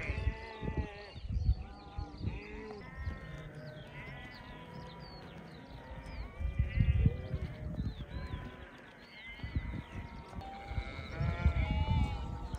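A flock of sheep bleating, many calls overlapping one another, some higher-pitched like lambs.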